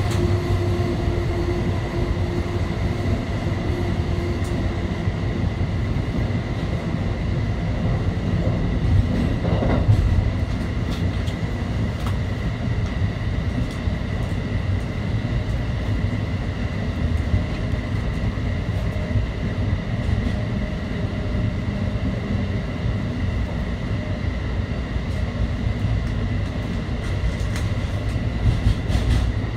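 Amtrak Northeast Regional passenger train running through a tunnel, heard from inside the rear car. The wheels on the rail make a steady rumble under a constant high tone, with a brief louder bump about ten seconds in.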